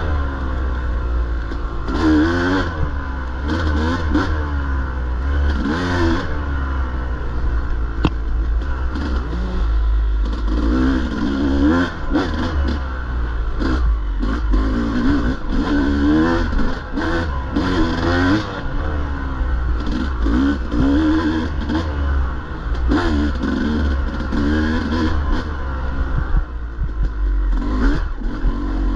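Dirt bike engine revving up and falling back over and over, its pitch rising and dropping every second or two as the throttle is worked, with a few sharp knocks from the bike.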